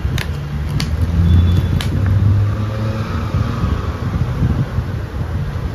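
Steady low mechanical rumble, with three sharp clicks in the first two seconds.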